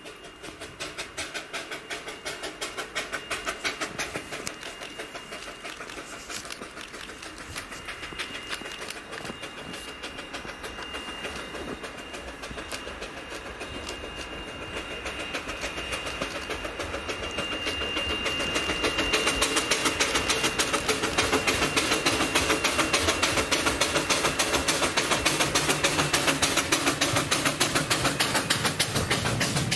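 Two-foot gauge steam locomotive working a passenger train, its exhaust beating in a steady rhythm. The sound grows louder about two-thirds of the way in as the engine draws near and passes.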